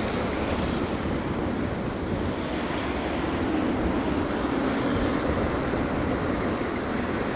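CFR class 60 (LDE2100) diesel-electric locomotive's Sulzer 12LDA28 engine running as it rolls slowly while shunting: a steady low rumble with a hum.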